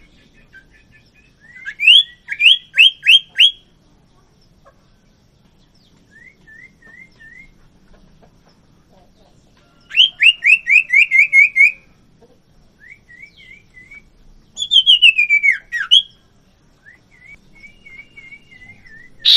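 Sirtu (common iora) calling in loud bursts of rapid, evenly repeated whistled notes, with a falling trill about fifteen seconds in. Softer short three-note phrases come in between.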